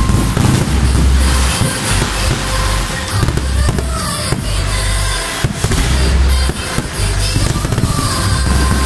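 Aerial fireworks bursting and crackling overhead in a rapid string of sharp bangs. Loud music with a deep bass plays alongside.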